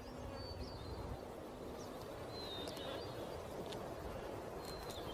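A few short, high bird chirps, spaced apart, over faint outdoor ambience.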